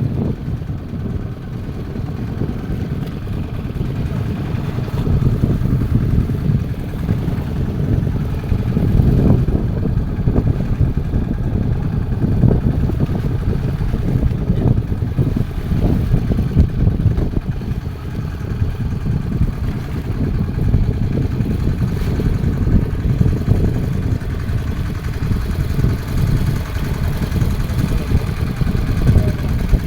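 Fishing boat's engine running steadily with a low rumble.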